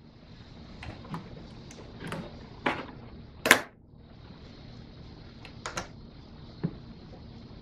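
Hands refitting the plastic air box cover and rubber intake duct on a 2015 Chevy Impala: a string of short plastic clicks and knocks, the loudest about three and a half seconds in, over a steady hiss.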